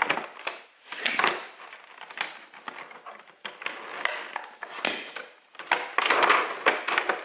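Wooden toy play-food pieces clacking and knocking together as they are handled, in irregular clicks, with a longer rustling scrape about six seconds in.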